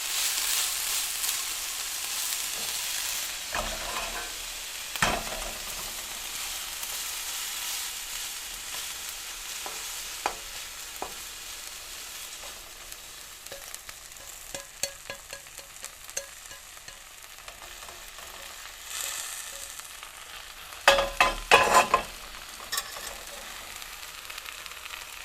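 Vegetables stir-frying in a hot pan: a steady sizzle that slowly dies down, broken by scattered knocks and scrapes of stirring, with a loud burst of clatter near the end.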